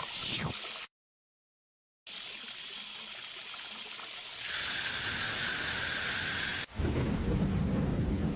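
Rain building up in stages: a few drips, then a second of dead silence, then light steady rain that turns heavier about four and a half seconds in. Near the end it switches suddenly to a downpour with rumbling thunder.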